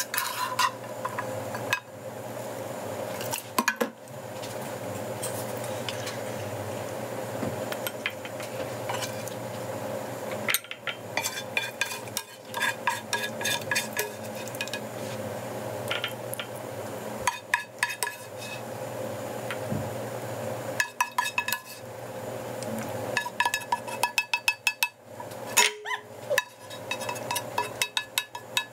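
Utensils clinking and scraping against a large frying pan and ceramic bowls as chicken and sauce are served out of the pan, in short clusters of quick ringing clinks from about a third of the way in. A steady hum runs underneath.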